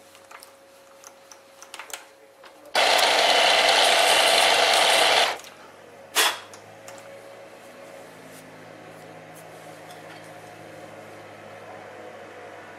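Bernardo Profi 600 G metal lathe run briefly, a loud steady machine noise for about two and a half seconds that stops quickly as a short cut is taken on the end of a steel workpiece. A sharp clack follows, then a faint low hum.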